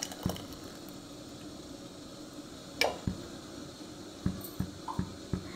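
Thick coconut-paste curry bubbling in a clay pot, with a series of short, low plops from about three seconds in as bubbles burst through the paste. One sharp clink near the middle, a steel spoon knocking the pot.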